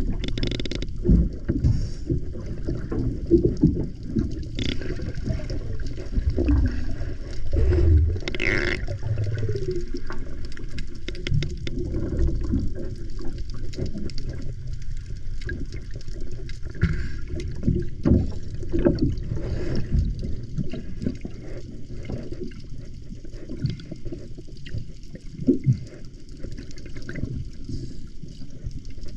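Water moving around a camera held underwater: a low, uneven rumble with scattered knocks and gurgles.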